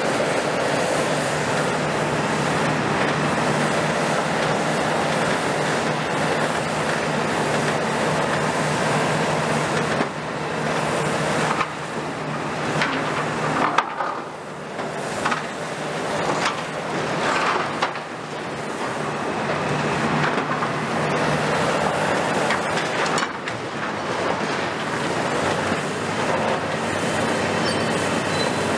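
Kiesel KMC 400 long-front demolition excavator (Hitachi ZX350-based) running steadily, its diesel engine and hydraulics under load. From about ten to twenty-four seconds in there are irregular metallic crunches, bangs and scraping as its attachment works the hall's steel framework and sheet-metal cladding.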